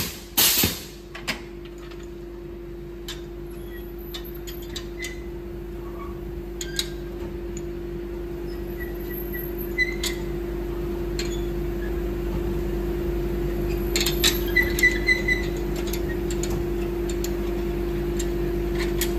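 Steady machine hum, slowly growing louder, with scattered light metallic clicks and clinks as metal mould clamps on a rack are handled. A few short high chirps come about halfway through and again about three-quarters of the way in.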